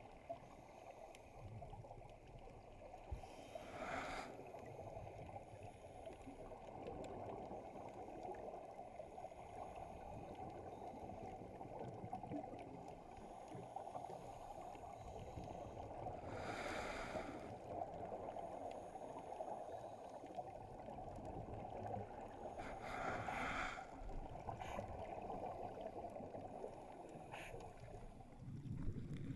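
Muffled underwater noise heard through a camera's waterproof housing, with three short bursts of scuba exhaust bubbles from a diver's regulator: about four seconds in, just past the middle, and about three-quarters through.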